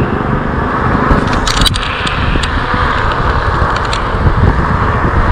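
Steady wind buffeting the microphone and road noise from an e-bike rolling along a street. A few light clicks or rattles come near the middle.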